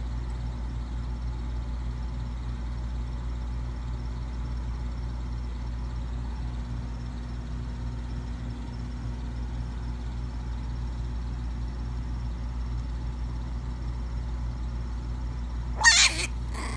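Steady low hum in the room. About a second before the end, a puppy gives one short, loud snarl.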